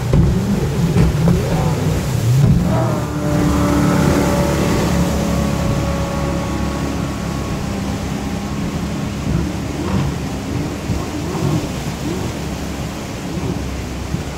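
Racing jet boat passing close with a loud low rumble, then its engine's steady whine fading over several seconds as the boat runs off up the rapids. The rush of the whitewater carries on beneath.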